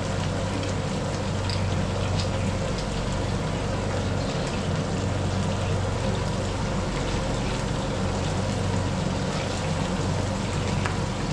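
Breaded striped bass frying in hot oil in a disco (plow-disc wok): a steady sizzle with scattered small crackles and pops, over the low steady roar of the gas burner.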